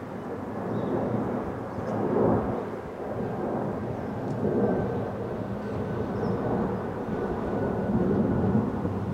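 Distant rumble of an Airbus A330-200 twin-engine jet airliner climbing out overhead, swelling and easing with a faint steady whine above it.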